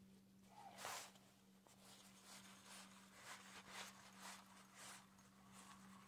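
Near silence with a faint steady hum and soft scratchy ticks about twice a second: a fishing reel being cranked to bring in a small fish.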